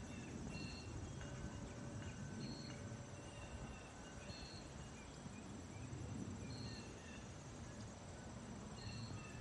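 Faint, low rumble of a Boeing 737-800 airliner flying at high altitude, swelling and fading slowly. A short high chirp repeats about every two seconds over it.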